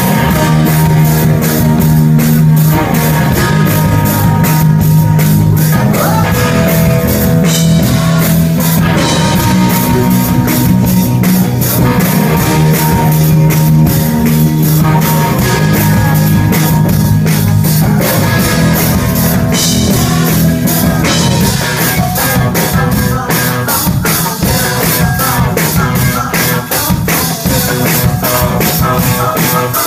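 Rock band playing live and loud: electric guitar, bass and drum kit keeping a steady beat, with a male lead vocal sung over it.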